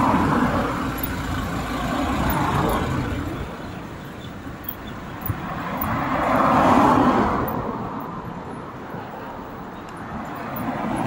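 Wind rushing over the microphone of a moving e-bike in a sandstorm, mixed with passing car traffic. The rushing swells louder near the start and again about seven seconds in.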